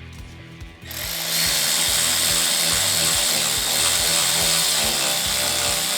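A handheld power tool runs steadily for about five seconds, driving the 10mm trim bolt on a jet ski's jet pump tight, with a brief louder burst just as it stops.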